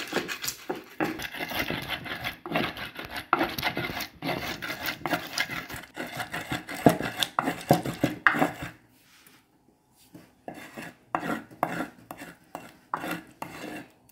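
Wooden pestle (tapoli) grinding fresh red and green pepper and onion against the ridged inside of an earthenware grinding bowl (asanka): dense rubbing and knocking strokes, thinning to separate strokes after about nine seconds.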